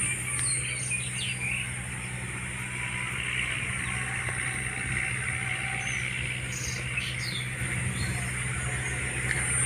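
Farm tractor ploughing a paddy field some way off: a steady low engine drone, with a few faint bird chirps.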